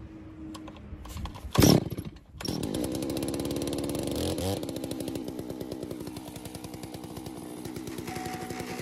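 92cc Holzfforma G660 two-stroke chainsaw being started: a loud short burst about a second and a half in, then the engine catches a second later. It revs briefly around four seconds in, then settles into a steady idle.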